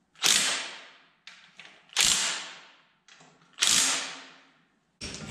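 Three loud rasping mechanical strokes, each fading over about a second, spaced roughly every one and a half to two seconds, with lighter clicks between them and another one starting near the end.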